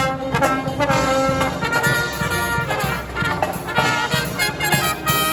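Live brass marching band playing: trumpets and trombones carry the melody with held notes over a steady drum beat.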